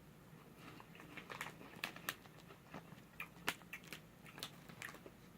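A person chewing a crunchy puffed snack: faint, irregular crunches and mouth clicks.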